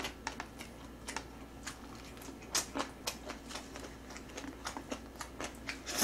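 Close-miked eating sounds: soft irregular chewing and mouth clicks, with chopsticks tapping and scraping in a paper cup. A couple of louder clicks come in the middle and another right at the end.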